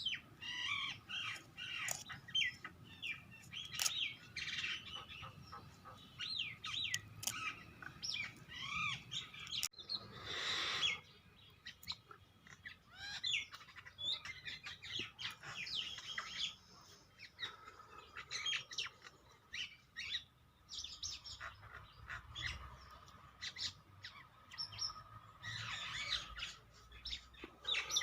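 Several birds chirping and calling with short, quick notes, scattered throughout, with a brief rushing noise about ten seconds in.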